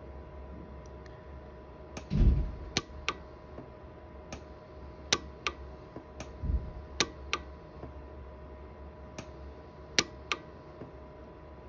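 Orion 150s pulse arc micro welder firing repeated short weld pulses at about 10 watt-seconds, each a sharp snap, about a dozen at uneven spacing and often in pairs, as it fuses 28-gauge silver filler wire into porosity pits in a silver ring. There are two low thumps, one about two seconds in and one past the middle, and a faint steady hum underneath.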